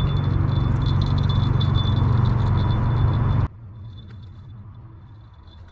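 Spinning fishing reel being cranked against a heavy fish: a steady mechanical whirr with fine rattling clicks over a loud low rumble of wind and handling on the body-worn microphone. It cuts off abruptly about three and a half seconds in, leaving only a faint sound.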